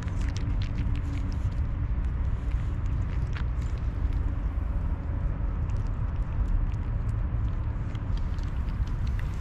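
Cats crunching dry kibble close by, heard as scattered small clicks over a steady low rumble.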